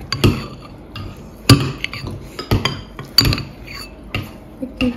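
A metal spoon clinking and scraping against a ceramic bowl as it scoops cake and ice cream, with a handful of sharp, separate clinks.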